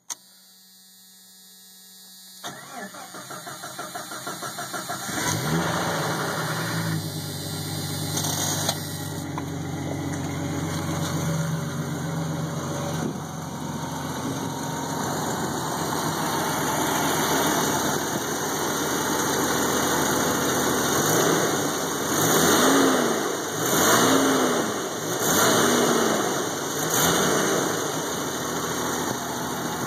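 Jeep 4.0 inline-six cranked by the starter for a couple of seconds, catching and settling into an idle, then revved briefly four times near the end. This is the engine whose knock and rattle the owner is trying to diagnose.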